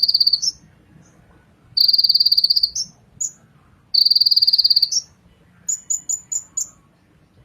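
Kolibri ninja sunbird singing: three loud, high, buzzing trills of about a second each, followed by a quick run of five short, sharper chips.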